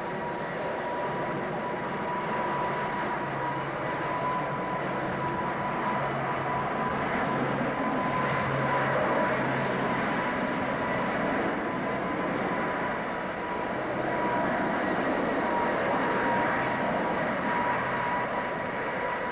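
Avrocar's jet engines and central turborotor running steadily: a continuous jet roar with a high, steady whine on top, swelling slightly and easing again.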